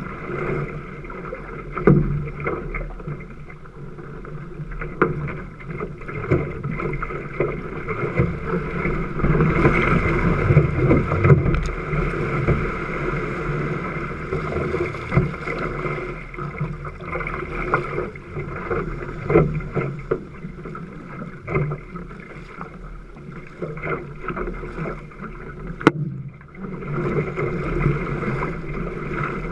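Water rushing and splashing along a Kahele one-person outrigger canoe's hull and ama as it is paddled through wind chop, with irregular paddle-stroke splashes. There is one sharp tick near the end.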